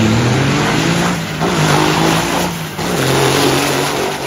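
Racing semi tractor's diesel engine at full throttle, accelerating hard down a drag strip; the loud engine note dips briefly twice and picks up again.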